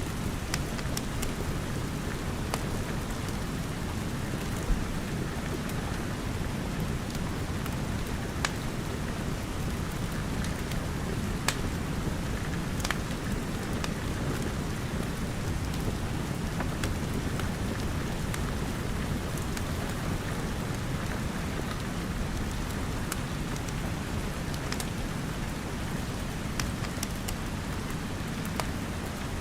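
Steady rain mixed with a crackling wood fire: a continuous even hiss with a low rumble underneath, and sharp pops and snaps scattered every second or two.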